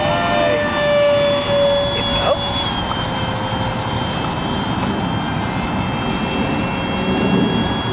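Electric motor of a radio-controlled model airplane whining in flight over wind noise, its pitch shifting slightly with throttle and passes.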